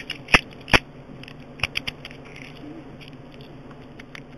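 Sharp metal clicks of a key working a 4-pin Kryptonite padlock: three loud clicks in the first second, then a few lighter quick clicks a little later.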